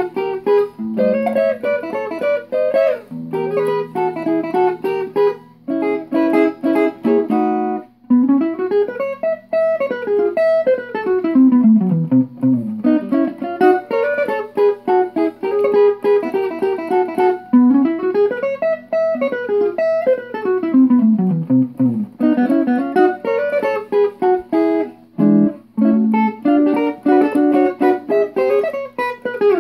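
Solo archtop guitar playing a swing tune. It opens with picked chords. From about eight seconds in come long single-note runs that climb and fall across the neck, and chords return near the end.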